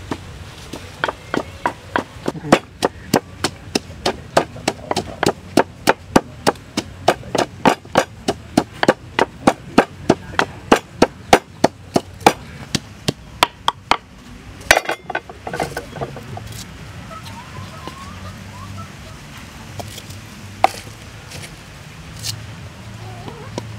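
Wooden pestle pounding chilies and lemongrass in a wooden mortar, steady strokes about three a second. The pounding stops about fourteen seconds in, leaving only a few scattered knocks.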